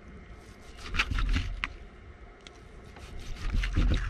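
Large kitchen knife slicing through grilled steak and scraping on a wooden cutting board, in two bouts: about a second in and again near the end.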